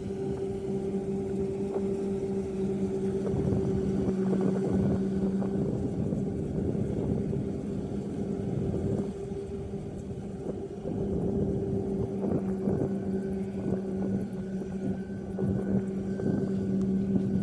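Rice combine harvester running steadily: a constant engine drone over the rough rattle of the machinery.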